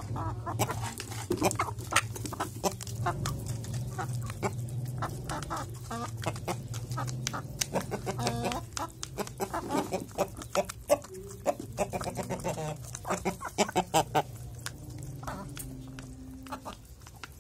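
A flock of young chickens clucking while they peck mash from a hand-held cup, with many quick sharp taps of beaks on the cup. A low steady hum lies beneath and fades near the end.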